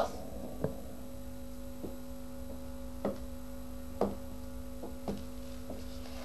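Steady electrical hum made of a few tones at once, low and constant, with several faint, irregular clicks over it.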